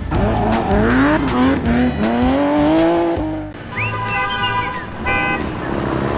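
Cartoon car sound effects over background music: a car sound with its pitch sliding up and down for the first three seconds or so, then a high arching squeal-like tone about four seconds in.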